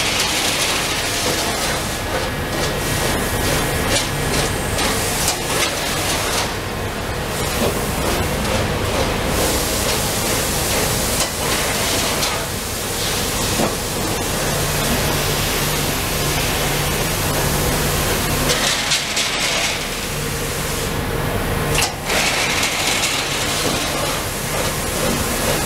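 A 33-ton Amada Pega 357 CNC turret punch running, with a rapid train of punching strokes and table moves. A low hum comes and goes under it, about halfway through and again near the end.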